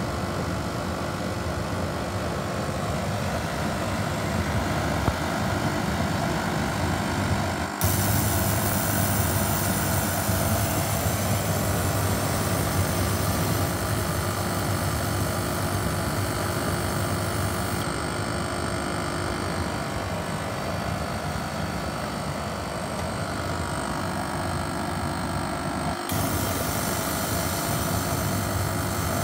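Diesel-fired forced-air burner running, its blower fan and flame giving a steady rushing noise over a constant hum. The sound shifts abruptly about eight seconds in and again near the end.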